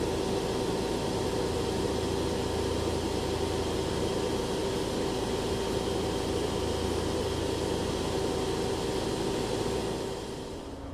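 Industrial dryer's burner and fans running steadily as it starts up and the burner reaches its run state: a constant machine hum with a few held tones. The noise drops about ten seconds in.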